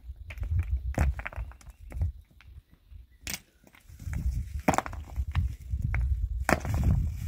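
Loose rocks clacking and knocking together in sharp, irregular clicks as they are picked up and moved by hand, with low wind rumble on the microphone for much of the time.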